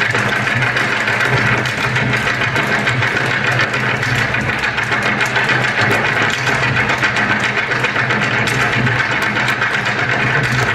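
Dense, rapid hard-shoe taps from a troupe of Irish dancers stepping in unison on a stage floor, running steadily, over a steady low hum.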